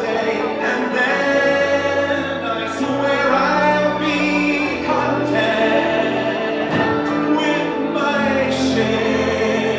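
Fireworks-show soundtrack: orchestral music with a choir singing.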